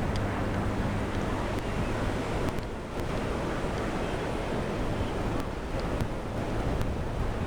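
Steady rushing of wind on the microphone and ocean surf, with a faint low drone of a distant warbird's piston engine fading out after about a second and a few faint clicks.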